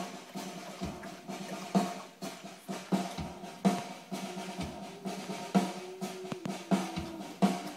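Drum kit playing a beat: a run of sharp snare hits with bass drum underneath.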